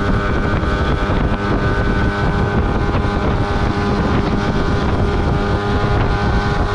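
A small open boat's outboard motor running steadily under way, with rushing wind and water noise over it.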